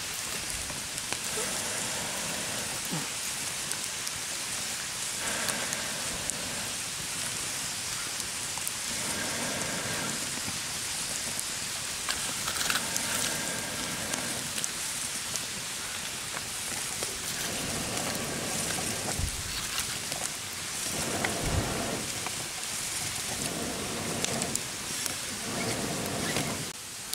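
Wood fire crackling in a stone-and-clay stove: a steady hiss with frequent small pops and snaps.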